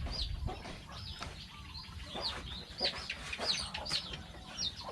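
Free-range native chickens in a pen: chicks peeping in repeated short, high, falling calls, mixed with hens clucking.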